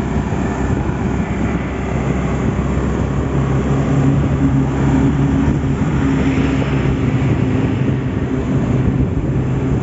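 Motorcycle running steadily at cruising speed: a low engine hum under rushing wind noise on the microphone.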